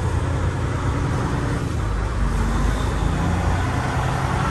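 Freightliner semi-truck's diesel engine running with a steady low rumble, heard inside the cab as the truck pulls away at low speed.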